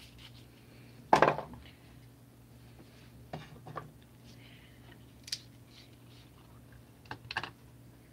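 Small plastic paint bottles and their caps handled and set down on a hard tabletop: a sharp clack about a second in, then a few lighter clicks and taps.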